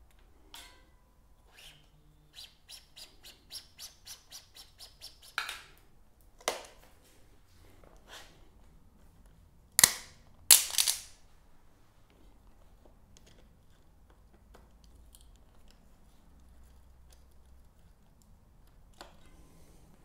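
Clicks and snaps from hand work on a road bike's rim brake. A quick, even run of about ten light ticks lasts some three seconds, then come a few separate sharp clicks and two loud snaps about ten seconds in, while the front brake caliper is handled.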